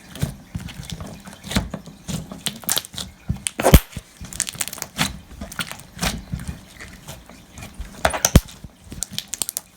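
Elmer's slime mixed with plastic music-note confetti being squeezed and poked by hand, giving irregular crackles and clicky pops. Two sharper, louder pops come about four and eight seconds in.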